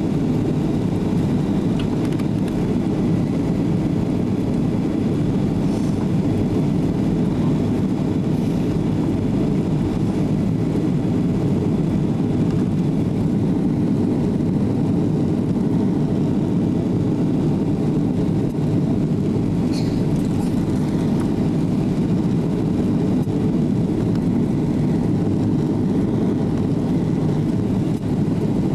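Steady roar of jet engines and rushing air inside the cabin of a Boeing 737 in flight, heard from a seat at the far back.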